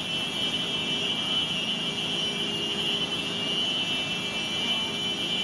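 An alarm sounding a steady high tone without a break, over a constant rushing roar of tsunami floodwater surging through the streets.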